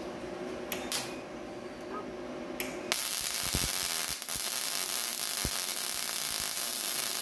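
YesWelder DP200 MIG welder's arc crackling and hissing steadily from about three seconds in, stitch welding thin 18–19 gauge steel body panel with .035 wire on mixed gas, running burning hot. Before the arc strikes there is a steady hum and a few sharp clicks.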